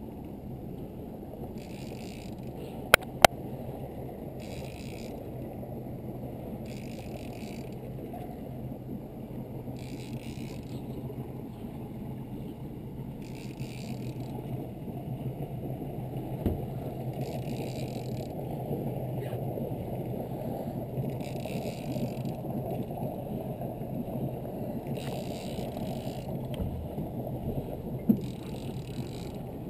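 Boat motor running with a steady low hum while a fishing reel is cranked in short whirring bursts about every two seconds as a big sturgeon is played on a heavy rod. Two sharp clicks sound about three seconds in.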